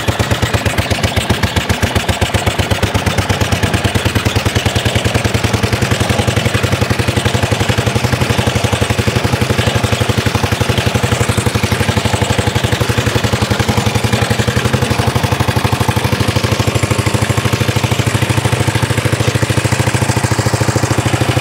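1930s Dennis Z-type lawn mower's engine running with a rapid, even beat of firing pulses as the mower is driven along under its own power.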